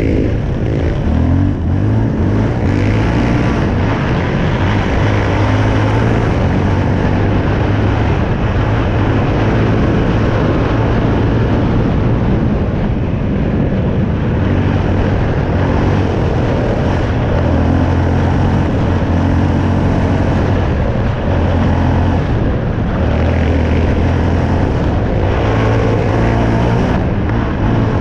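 Yamaha Raptor 700 quad's single-cylinder four-stroke engine pulling the machine along a dirt trail. Its low engine note rises and falls with the throttle over a steady rush of noise.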